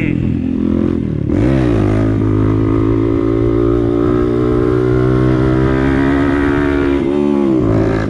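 Motorcycle engine running while riding. Its pitch drops and climbs back up about a second in, holds steady at cruising revs, then dips and rises again near the end.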